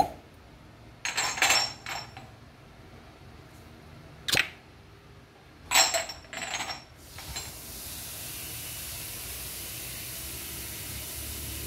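Glass cupping cups clinking against each other as they are handled, in a few short clusters of clinks and one sharp knock. A steady hiss sets in about seven seconds in.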